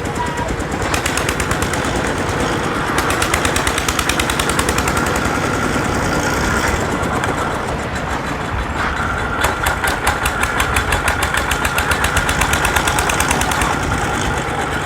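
Small engine on a makeshift beach winch running under load, driving the rope through a fan belt and pulley, with a rapid steady knocking beat that grows sharper in the second half.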